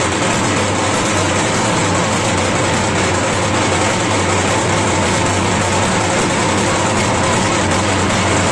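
Loud, steady din of a packed street crowd, with a steady low hum underneath.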